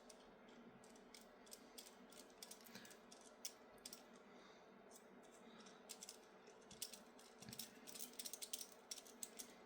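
Faint small clicks and ticks of a 1.5 mm hex screwdriver turning an M2 screw to fasten a small RC car wheel to its steering lever, sparse at first and getting more frequent in the second half.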